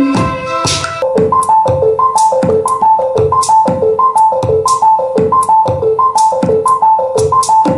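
Teenage Engineering OP-1 synthesizer playing electronic music: a drum-machine beat with sharp hi-hat-like hits under a quick repeating two-note synth figure that comes in about a second in.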